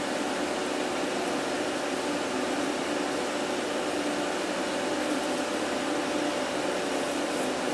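Salvaged server fan with a brushless DC motor running steadily, blowing air up through the coal forge's duct and firepot: an even rushing hiss with a steady hum of several tones.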